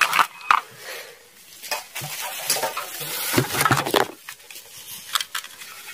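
Hard plastic toy guns being handled: irregular clicks and knocks as one is set down on concrete and another is picked out of a cardboard box of toys, with some rustling between.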